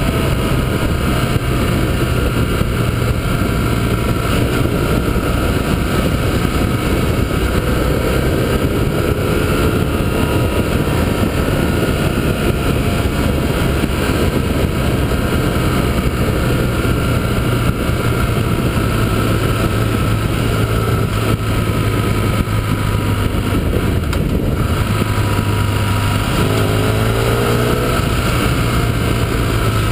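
Motorcycle engine running at a steady cruise under heavy wind rush on the bike-mounted camera, with the engine note briefly rising and falling twice, about a third of the way in and near the end.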